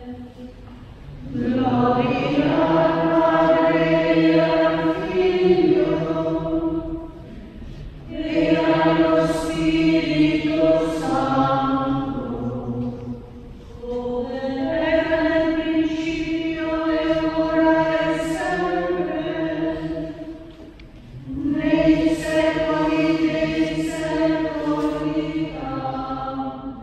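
Background music with sung vocals: four long, held phrases of about five seconds each, with short breaks between them.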